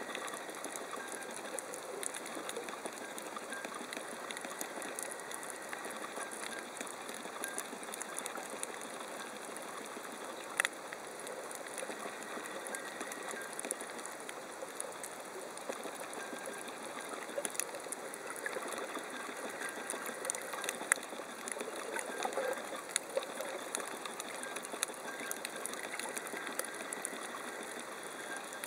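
Underwater coral-reef ambience: a steady, dense crackle of small clicks, with a few sharper clicks standing out, one near the middle and another about two-thirds of the way through.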